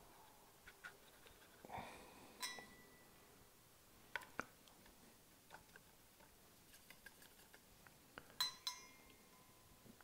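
A paintbrush tapping and clinking against a metal watercolour paint tin while paint is mixed. The taps are faint and scattered, with two louder clinks that ring briefly, about two and a half seconds in and near the end, the last the loudest.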